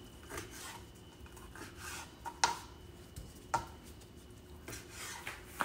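A kitchen knife cutting raw boneless chicken breast into cubes on a cutting board. The blade taps the board in sharp, irregular strokes, about one a second.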